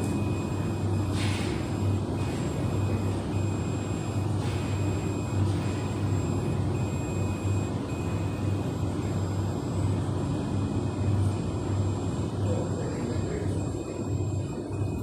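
Laser welding machine running with a steady low electrical hum and a faint high whine that cuts in and out, with two brief hissing snaps in the first few seconds.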